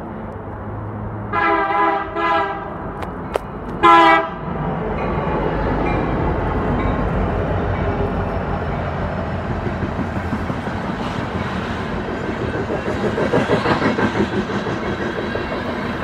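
BNSF EMD SD70MACe locomotive's air horn sounding three short blasts as the loaded coal train approaches, the third the loudest. The lead diesel locomotives then pass close by with a rising rumble, followed by loaded coal hoppers rolling past with rhythmic wheel clatter.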